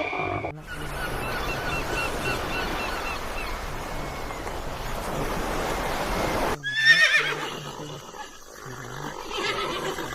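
Horse whinnying: a quavering run of short, quickly repeated notes over a rushing background, then a cut to a different rising call after about six and a half seconds.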